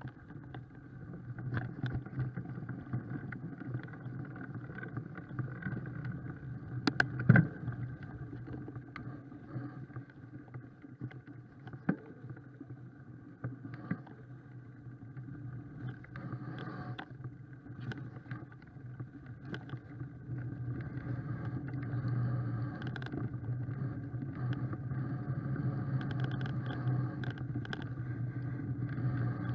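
Mountain bike riding along a leaf-covered woodland dirt track: a continuous rumble of tyres and frame vibration, with scattered rattles and knocks over bumps. The loudest clatter comes about seven seconds in, and the rumble grows louder after about twenty seconds.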